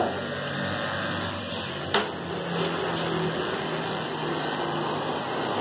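Electric dog clipper with a number 7 blade running steadily as it shaves a cocker spaniel's muzzle, with one sharp click about two seconds in.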